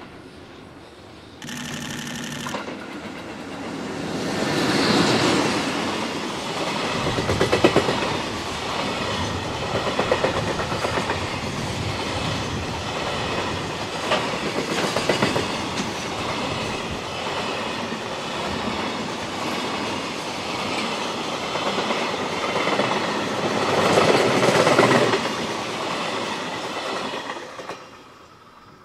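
EH500 electric locomotive hauling a long container freight train past. The locomotive goes by about five seconds in, followed by a steady clickety-clack of the container wagons' wheels over the rail joints, which dies away near the end as the last wagon passes. A short horn-like tone sounds about a second and a half in.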